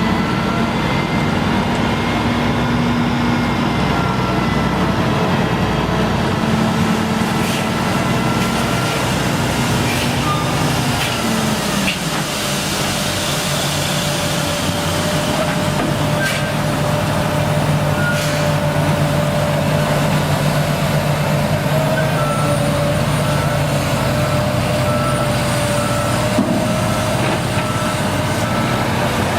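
Heavy diesel construction machinery running steadily under load. From about three-quarters of the way through, a repeating beep sounds at an even pace.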